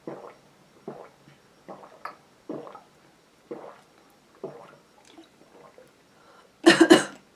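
A person gulping water, swallowing steadily about once a second, eight or so swallows in a row. Near the end comes one louder, brief noisy burst.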